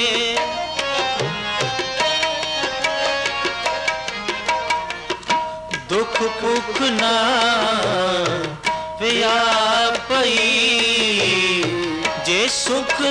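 Sikh kirtan: harmoniums sounding steady held notes with a tabla pair played in quick strokes. From about six seconds a man's voice sings a slow, ornamented gliding melody over them.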